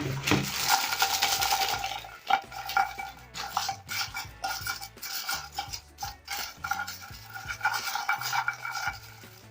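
Freshly deep-fried chicken feet being mixed with a dry pepper, paprika and salt seasoning: irregular clinking, rattling and scraping of a utensil against the dish, busiest in the first two seconds.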